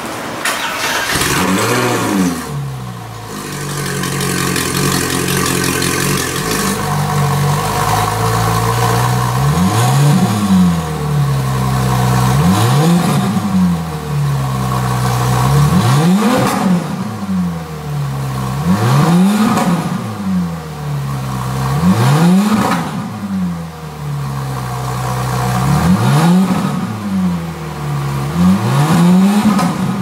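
Ferrari 458 Italia's naturally aspirated V8 idling through an Fi Exhaust valvetronic catback with catless downpipes, the exhaust valves closed. The throttle is blipped in quick rev pulses that rise and fall back to idle, one about two seconds in and then roughly every three seconds from about ten seconds in.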